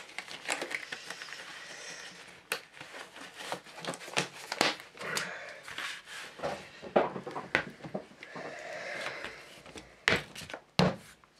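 A thin disposable glove being pulled on over a hand: irregular rubbery crinkling and small snaps. Near the end, two knocks as a paint bottle is handled.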